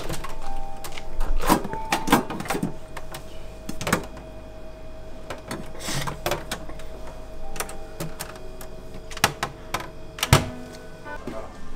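Scattered knocks and clicks of objects being handled during bar preparation work, about a dozen irregular strikes with the loudest just after ten seconds in, over a faint steady hum.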